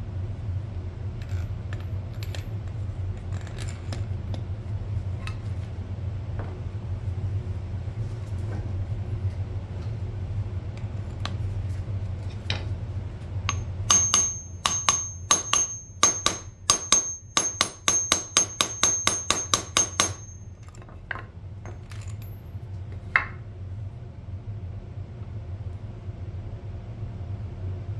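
Metal tools clicking and clinking against shock absorber parts over a steady low hum. Near the middle comes a run of quick, sharp metallic taps, about four a second for some six seconds, with a thin high ring.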